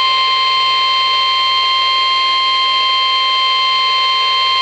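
NOAA Weather Radio warning alarm tone (the 1050 Hz tone): one steady, unbroken high beep over a background of radio hiss. It signals that a weather warning, here a flash flood warning, is about to be broadcast.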